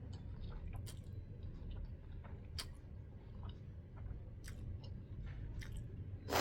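A person chewing and biting food close to the microphone, with scattered short wet clicks and a louder sharp click near the end.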